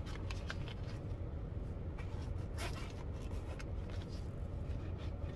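Light rustling and clicking of a zippered wallet being handled, over a steady low rumble.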